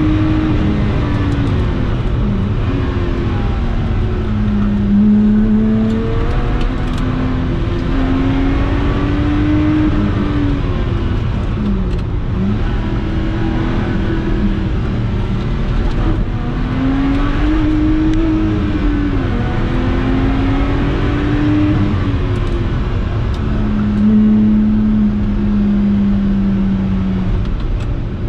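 Supercharged 3.5-litre V6 of a Lotus Exige 350 Sport, heard from inside the cabin while driven hard: its pitch climbs under acceleration and drops on lifts and downshifts several times over, above steady tyre and wind noise.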